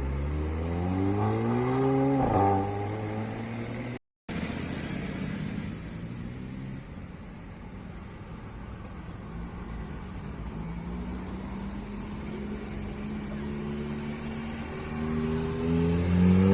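A car engine accelerating hard, its pitch rising for about two seconds before it drops off suddenly. After a short silent break, a car engine runs more steadily at lower pitch, then climbs again near the end.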